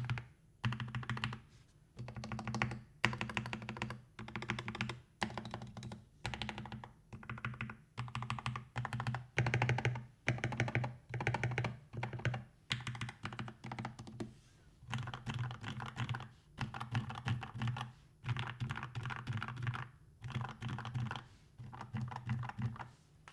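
Typing on a GK61XS custom mechanical keyboard with lubed Gateron Milky Yellow linear switches, filmed switches, and foam and tape mods, set straight on the desk without a desk mat. The keystrokes come in runs of about a second with short pauses between them.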